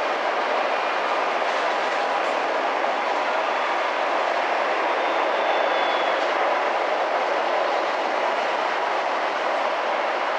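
Steady roar of jet aircraft noise across the airport apron, an even rushing sound with no change in level.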